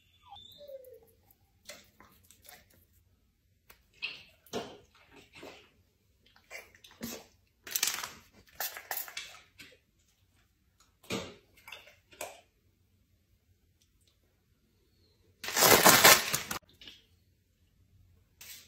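Scattered short rubbing and brushing noises as a Cane Corso is groomed by hand, with one louder hissing noise lasting about a second near the end.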